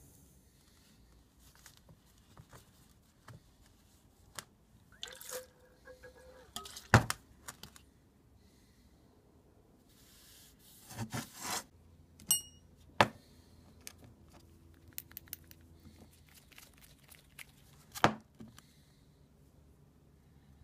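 Small objects being handled and set down on a wooden workbench: scattered light taps and rustles with a few sharp knocks, the loudest about a third of the way in, about two-thirds in and near the end.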